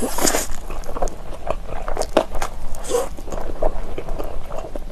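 Close-miked eating of Chapagetti black bean instant noodles. Noodles are sucked into the mouth at the start and again about three seconds in, with wet chewing between.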